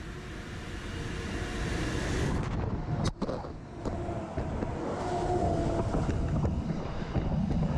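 A passenger train running into a station and passing close by: a steady rumble that builds over the first couple of seconds, with wind buffeting the microphone and a faint steady whine in the middle.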